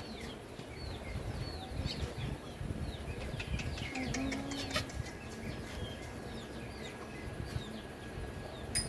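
Young Javan mynas giving many short, high chirps, over and over. A sharp click comes near the end.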